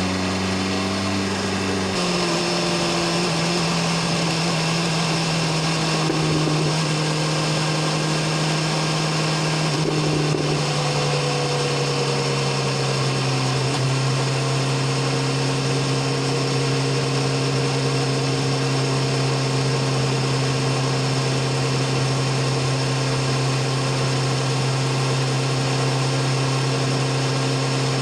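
BMW S1000RR's inline-four engine and exhaust running steadily under way. The pitch eases down gradually about ten seconds in, then holds even.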